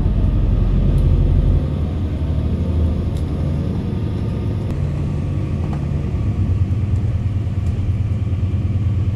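Steady low rumble of a city bus in motion, heard from inside the cabin: engine and tyres on wet road. The deepest part of the hum drops away about one and a half seconds in.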